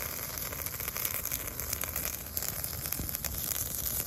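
Wood fire crackling in a brazier under a wire grill, with sausages on a skewer sizzling in the flames.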